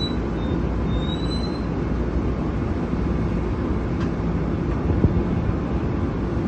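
Steady low rumble of a Long Island Rail Road M7 electric train standing at the platform, its equipment running. A brief rising squeal comes about a second in, as the train settles from its stop.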